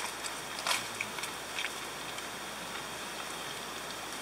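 Steady hiss with a few short, faint clicks and crunches: chopsticks against a metal plate and crispy fried noodles being eaten.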